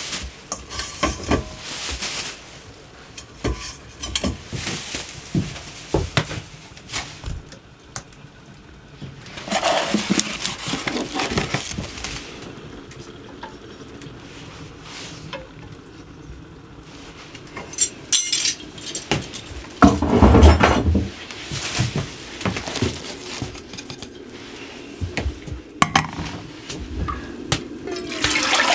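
Kitchen clatter of dishes, pots and cutlery being handled: scattered sharp clinks and knocks, with two longer noisy stretches about a third of the way in and near two-thirds, the second the loudest.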